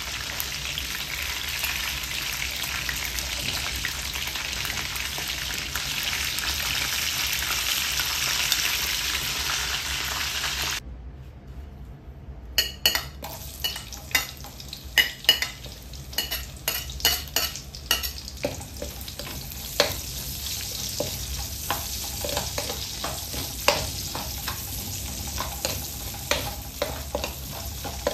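Pieces of chicken sizzling steadily in hot oil in a metal wok. About eleven seconds in the sound cuts off; then sliced onions sizzle in the oil while a metal spatula stirs them, knocking and scraping against the wok with many sharp clicks.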